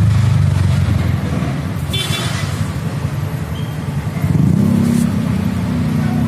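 City street traffic: motor vehicle engines running close by, easing off and then growing louder again a little after four seconds. A brief high-pitched squeal about two seconds in.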